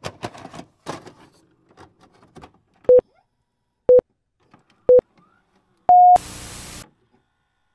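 Film-leader countdown sound effect: scattered clicks and crackles, then three short beeps a second apart, a longer, higher-pitched beep, and a brief burst of static hiss.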